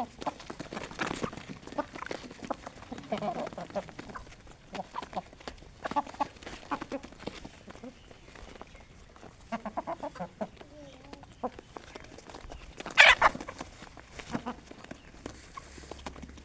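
Aseel hens clucking softly and intermittently, among many short ticks. A loud, brief burst stands out about thirteen seconds in.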